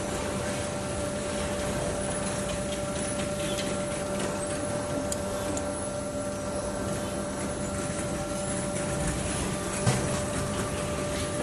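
A steady mechanical hum with a constant tone, and a sharp click about ten seconds in.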